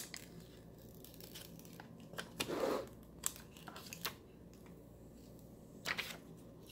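Thin plastic protective film being peeled off a smartphone's glass screen: scattered crinkling and crackling, with a longer peeling rustle about two and a half seconds in and a short crackle near the end.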